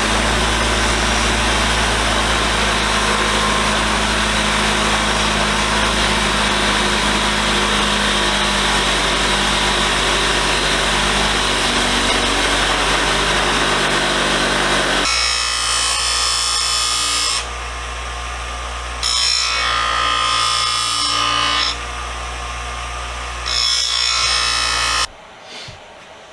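Motor-driven wire wheel running and scrubbing grime and rust off a screwdriver, a dense steady hiss over the motor's hum. About halfway through, the scrubbing turns into louder stretches of a couple of seconds with quieter gaps between, and the motor stops shortly before the end.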